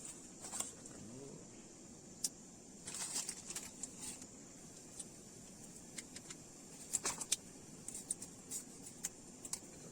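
Light metallic clinks and scrapes of a utensil working in a camping pot as spaghetti is stirred so it cooks evenly, with a cluster of taps about three seconds in and another about seven seconds in, over a steady high hiss.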